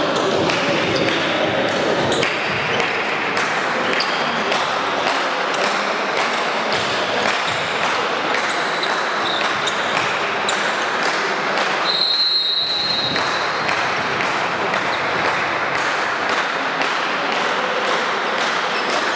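Steady din of crowd noise and voices in a sports hall during a volleyball match, with sharp knocks about twice a second throughout. A short, high referee's whistle blast sounds about twelve seconds in.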